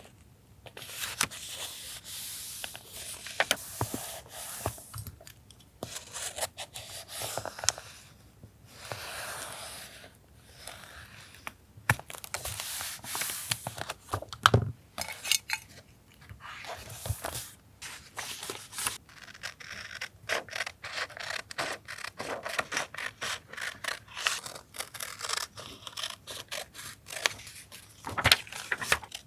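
Paper being handled for collage journaling: scraping, rubbing and tearing in irregular spells with many small clicks and taps between short pauses. A single sharp knock about halfway through is the loudest sound.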